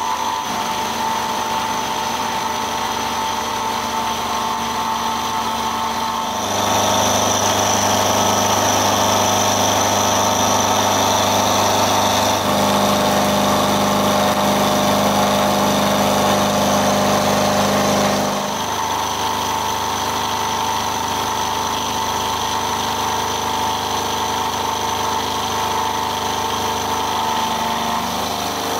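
Knee mill spindle running with an end mill taking a 4 mm deep cut through a metal block. It is a steady machine sound that changes abruptly about six seconds in, running louder until about eighteen seconds in, then returning to the earlier sound.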